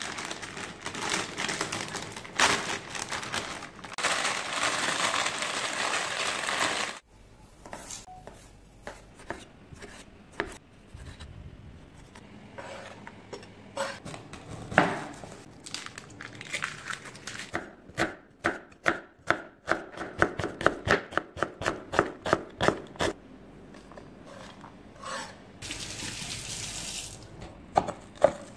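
A chef's knife chopping onion, then spring onions, on a wooden cutting board: separate sharp knocks, with a quick run of about four chops a second about two-thirds of the way through. It opens with about seven seconds of loud, steady rushing noise.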